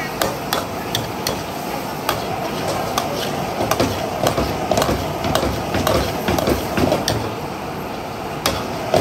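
Metal ladle clanking and scraping against a steel wok while stir-frying, in irregular strikes that are busiest in the middle, over a steady hiss of frying.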